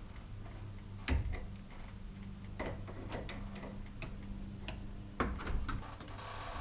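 Irregular clicks and knocks of a wrench tightening the set screws on a garage door torsion spring's winding cone, over a steady low hum.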